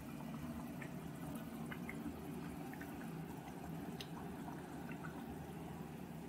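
Thick yogurt-masala curry gravy simmering in a pan: a low, steady bubbling with small scattered pops and blips.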